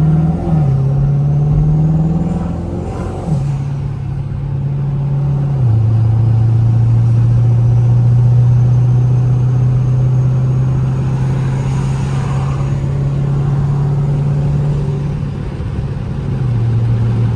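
Twin-turbocharged 5.7 Hemi V8 of a Dodge Charger accelerating through the gears. The engine pitch rises and then drops at each of a few upshifts in the first six seconds, then holds a steady pitch at cruise and steps down once more near the end.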